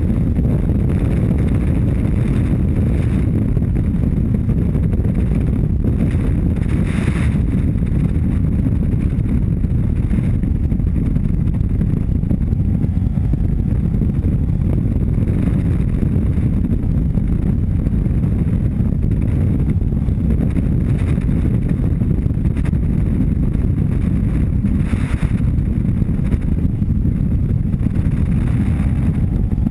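BMW F800GS parallel-twin engine running steadily at cruising speed on a gravel road, recorded on board with a heavy, even rumble of wind on the microphone.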